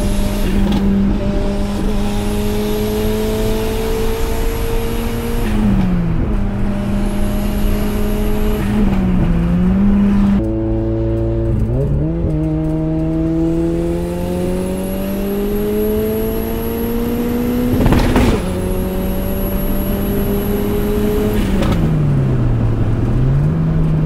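Turbocharged Tofaş Doğan four-cylinder engine pulling hard under boost, heard from inside the car. Its pitch climbs slowly and dips briefly a few times. A high turbo whistle comes in and cuts off three times, and there is one sharp crack about three quarters of the way through.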